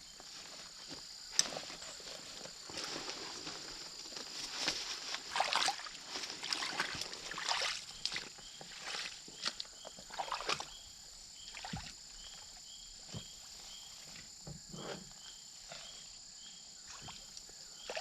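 Boots wading and sloshing through shallow water, in irregular splashing steps. From about halfway on, a short high chirp repeats about twice a second.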